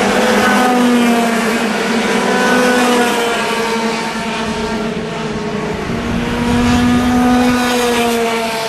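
Several Junior TKM racing karts with two-stroke engines running at high revs as the pack goes by, their overlapping engine notes rising and falling in pitch. The sound is louder in the first three seconds, dips, and swells again after about six seconds.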